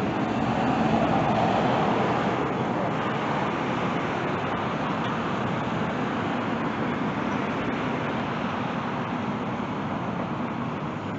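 Steady road traffic noise from vehicles passing on the street, swelling in the first couple of seconds as a vehicle goes by and then settling to an even hum.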